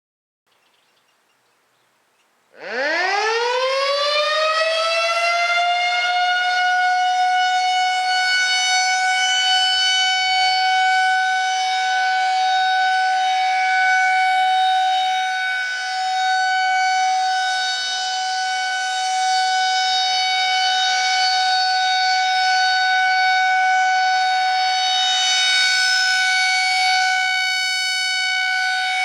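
Federal Signal 2001-130 rotating mechanical warning siren starting up about two and a half seconds in. Its pitch climbs steeply as the rotor winds up, then it holds one steady, loud tone with slight swells and dips in loudness. It is sounding a test signal.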